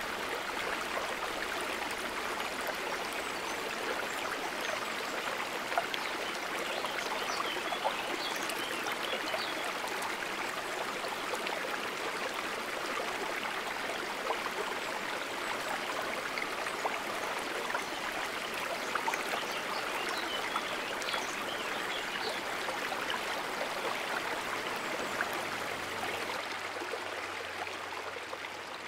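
Steady babbling of running water in a stream, fading out near the end.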